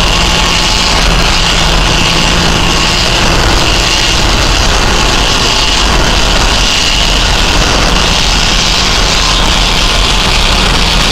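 Helicopter flying close by: loud, steady turbine and rotor noise with a deep hum underneath and a high whine on top.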